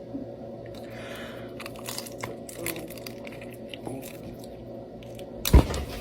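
A person biting into and chewing a frozen pickle wrapped in a fruit roll-up: scattered small crunches and clicks, with one sharp, loud crack near the end.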